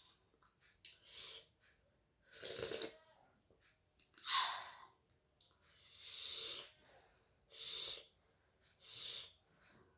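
A person eating close to the microphone, making about six short, breathy, hissing bursts at a steady pace of roughly one every second and a half.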